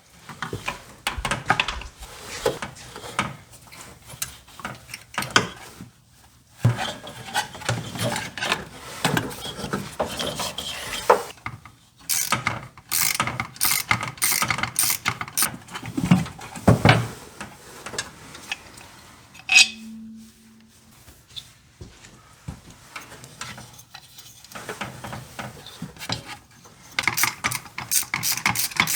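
A 3/8-inch drive ratchet wrench clicking in runs of quick clicks, mixed with clinks and rubbing of tools on metal, as the belt tensioner is worked free.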